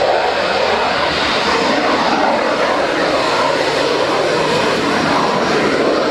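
Loud, steady aircraft engine noise: a broad rushing sound without a clear pitch, from a fixed-wing aircraft under power.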